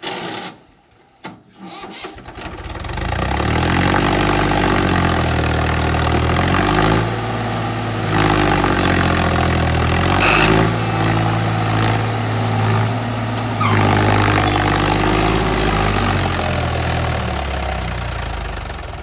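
Mahindra 265 DI tractor's three-cylinder diesel engine starting about two and a half seconds in, then revving up and down in four loud surges as it strains to pull an overloaded sand trolley stuck in soft sand; it dies away near the end.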